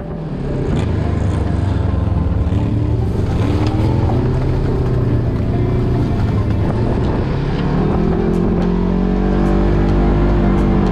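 Polaris RZR 1000 side-by-side's engine running steadily while driving, heard from inside the cab; its note rises about two-thirds of the way through as it picks up speed and then holds, with a few light clicks and rattles near the end.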